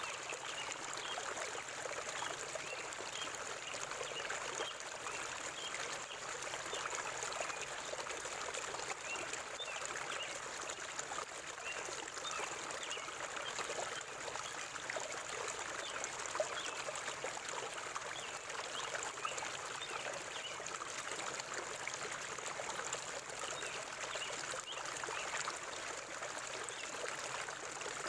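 River water flowing steadily over rocks, a continuous rushing with fine trickling and splashing.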